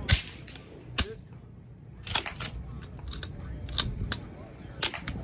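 Gunshots at an outdoor shooting range: about half a dozen sharp reports at uneven intervals, the loudest right at the start with a trailing echo and the others fainter, from several shooters firing at once.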